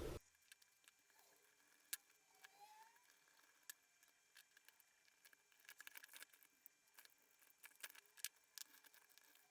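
Faint, scattered small clicks and taps of hands and tools on the plastic and metal parts of a WLtoys 144001 RC car's front end as it is taken apart to reach the drive shaft.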